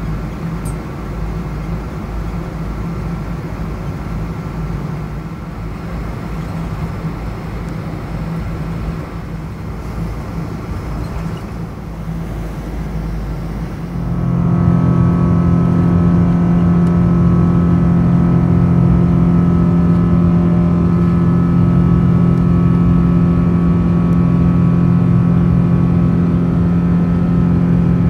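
Boeing 777-200ER jet engine heard from inside the cabin: a steady hum at taxi power, then about halfway through it spools up sharply to takeoff thrust and holds a loud, steady drone with a whine as the aircraft starts its takeoff roll.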